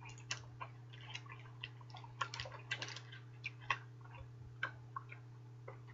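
Faint, irregular wet clicks and smacks of a mouth chewing a large wad of bubble gum, over a steady low hum.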